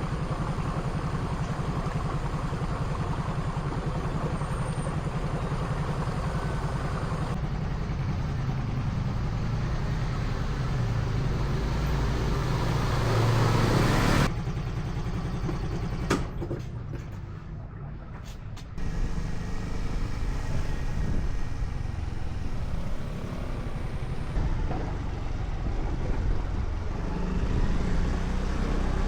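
Street traffic: vehicle engines running past, with a steady low rumble. One vehicle builds louder to about halfway through, then the sound cuts off suddenly and the traffic noise carries on at a lower level.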